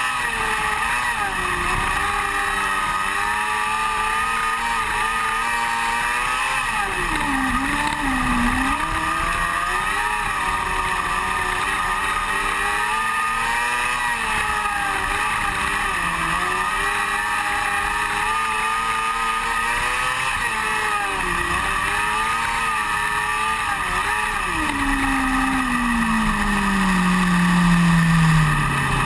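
Onboard sound of a small open-wheel dirt-track race car's engine at racing speed, its pitch rising and dipping as the driver gets on and off the throttle through the turns. Over the last few seconds the engine note falls steadily as the car slows.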